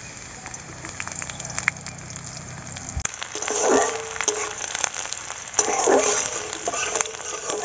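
Chopped onion and garlic sizzling in hot mustard oil in an aluminium kadai, with a metal spatula stirring and scraping the pan. The crackling sizzle grows louder about three seconds in, swelling twice as the pan is stirred.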